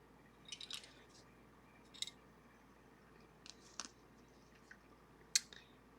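A few faint, sharp clicks and light taps of small metal parts being handled on a lever lock, the sharpest about five seconds in.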